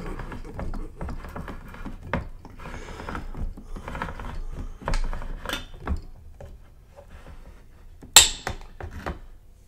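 Handheld manual can opener being turned around the rim of a tin can, giving an irregular run of clicks and scraping ticks. Near the end a sharp metallic clack as the cut lid comes free.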